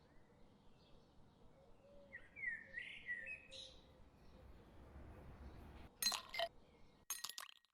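A bird chirping faintly in the background, with a short gliding call a couple of seconds in. Near the end come two brief bursts of sharp clicking and clinking about a second apart, the loudest sounds here.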